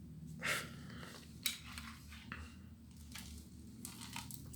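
Light clicks and clatters of a Roomba's plastic dustbin being handled and emptied: about half a dozen short, separate knocks spread over a few seconds, with a low hum underneath.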